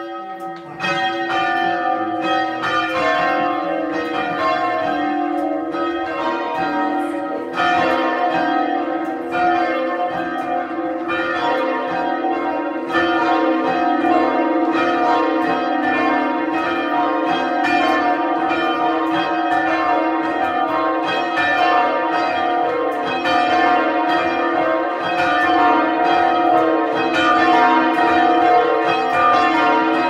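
A ring of eight church bells, tenor 22 cwt in E-flat, being rung in full-circle change ringing and heard from the ringing chamber below. The bells start striking about a second in and go on in a steady, unbroken stream of strokes.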